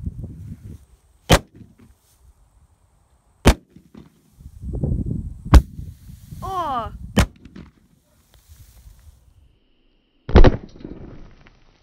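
Propane gopher blaster detonating gas in pocket gopher tunnels: four sharp cracks roughly two seconds apart, then a heavier bang about ten seconds in.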